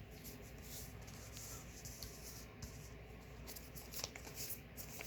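Trading cards being leafed through by hand: soft repeated swishes of cards sliding over one another, with a couple of light taps near the end.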